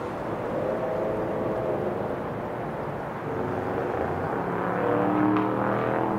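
Steady rumble of vehicle engines across the city. An engine hum grows louder and rises a little in pitch in the second half.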